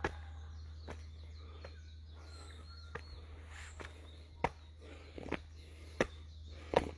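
Irregular footsteps or taps, a handful of sharp ones, with faint birds chirping and a steady low hum underneath.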